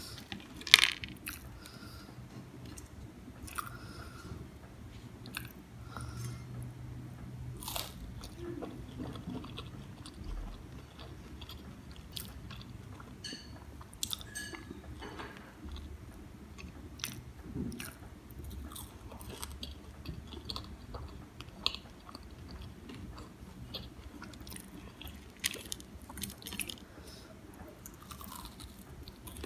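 Close-miked crunching and chewing of crispy fried vegetable pakoras: irregular crisp crackles and bites scattered throughout, the loudest crunch about a second in.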